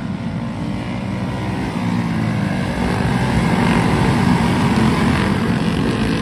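Several winged dirt-track go-karts running together at racing speed, their small engines blending into one steady drone. It gets louder about three to five seconds in as karts pass close by.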